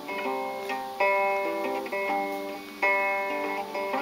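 Guitar strumming chords, a fresh strum about once a second, each chord ringing on between strokes.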